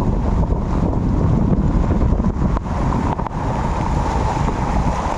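Floodwater churning and splashing across a flooded street, with heavy wind buffeting the microphone.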